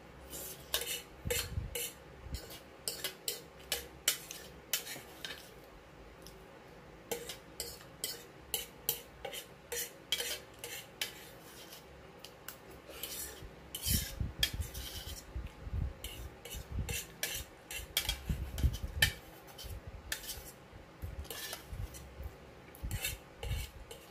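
Cutlery clinking and scraping against a bowl of pasta while eating, in many short, irregular strokes. Duller low knocks come in bunches about halfway through.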